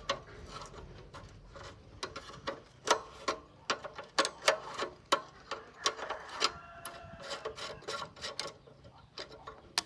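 Metal tools and parts being handled during hand repair work: irregular sharp clicks, taps and clinks, a few of them ringing briefly.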